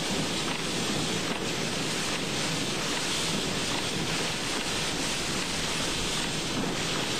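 Wind-driven heavy rain and storm winds of around 80 mph buffeting a moving car, heard from inside the car: a steady, dense rush of noise.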